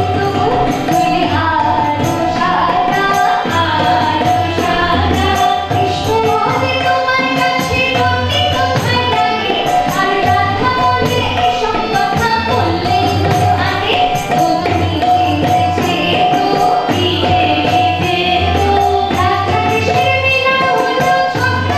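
A woman sings a melodic song into a microphone, accompanied by a harmonium. A steady percussion beat with jingling strokes keeps time underneath.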